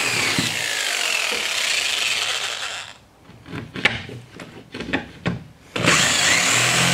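Corded jigsaw cutting through OSB board, its motor whine sagging and recovering in pitch as it cuts. About three seconds in the saw stops, leaving a few knocks and taps, and it starts cutting again near the end.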